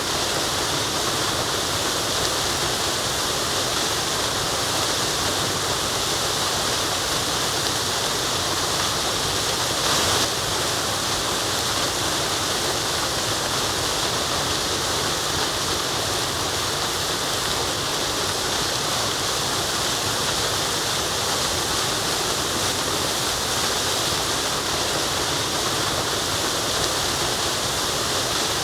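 Waterfall: a steady rush of falling water, with a brief louder surge about ten seconds in.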